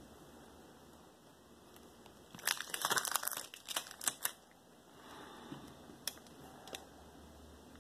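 Close handling noise: a burst of crinkly rustling and sharp clicks about two and a half seconds in, lasting roughly two seconds, then a couple of single clicks.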